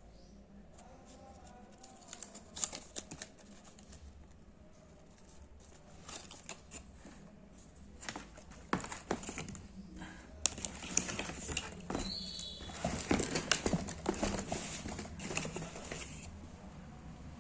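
Shoes and their packaging being handled: irregular taps, clicks and crinkling, sparse at first and busier and louder in the second half.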